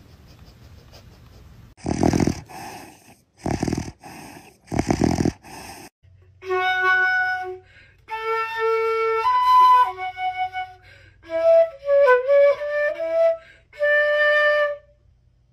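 A transverse flute playing a slow melody of held notes, starting about six seconds in. Before it come four short, noisy bursts.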